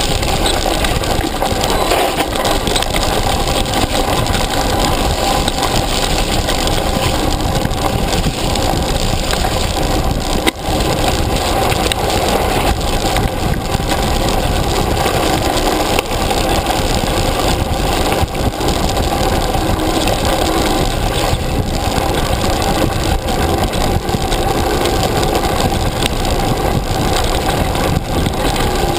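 Mountain bike descending a rough dirt track at speed, heard from a handlebar-mounted camera: steady loud wind rush on the microphone mixed with the rattle of the bike over the ground, with one sharp knock about ten seconds in.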